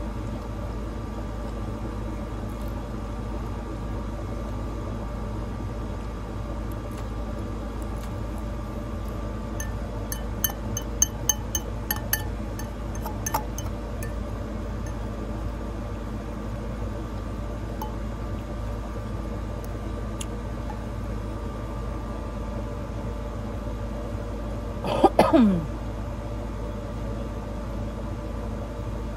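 A fork clinks against a ceramic bowl in a quick run of sharp, ringing clicks from about ten to fourteen seconds in, over a steady low background hum. About 25 seconds in comes one short, louder sound that falls quickly in pitch.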